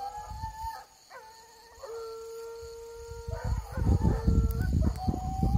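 A pack of American hunting hounds baying in long drawn-out howls, several voices overlapping at different pitches with short breaks, as they give tongue on the hunt for wild boar. A low rumbling noise comes in from about three seconds in and grows louder near the end.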